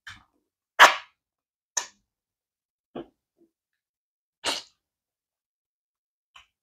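Close-up mouth sounds of eating fufu and stew by hand: six short, wet smacks and sucks of the lips and fingers, the loudest about a second in.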